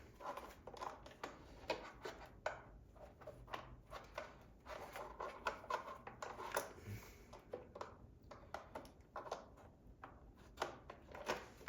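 Irregular small plastic clicks, taps and knocks as a new main roller brush is worked into a robot vacuum's brush housing, with some fiddling before it seats.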